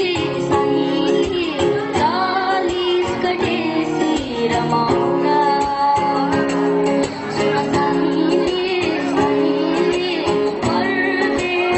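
A solo voice singing a Nepali song over instrumental backing with a steady percussion beat.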